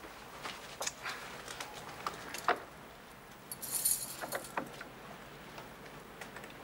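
Small metallic clicks and scrapes of tools being worked in a front-door lock, with a brief jingle of metal about four seconds in.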